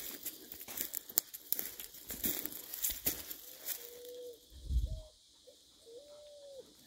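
Dry twigs and leaf litter crackling and snapping as someone pushes through woodland undergrowth on foot, with a low thump about five seconds in before it goes quiet.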